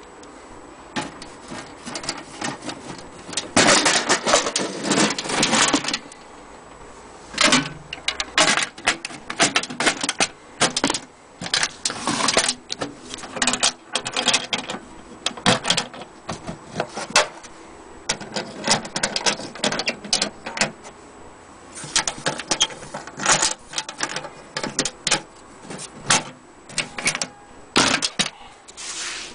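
Metal clattering and clicking as an aluminium sewing-machine carrying case and the machine on its metal base are handled, in irregular bursts of knocks and rattles, the longest and loudest a few seconds in. Sharp clicks of the case's metal latch being worked come in among them.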